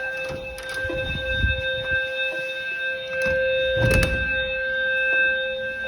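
Fire alarm sounding a steady, unbroken tone during a smoke-detector test; it stops near the end. Low rumbling about a second in and a heavy thud about four seconds in.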